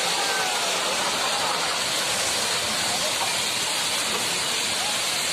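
Strong storm wind rushing steadily, with a few faint whistling glides over it.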